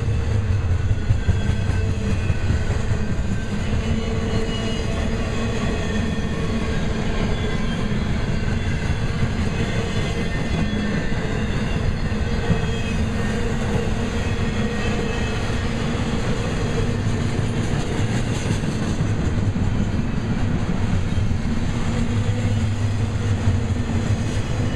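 Intermodal double-stack train's well cars rolling past close by: a steady rumble and clatter of steel wheels on the rails.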